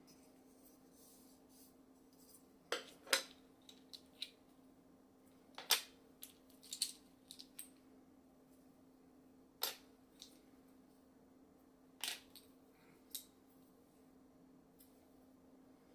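Scattered sharp clicks and taps of hard objects being handled, about a dozen at irregular intervals, a few of them louder, over a steady low hum.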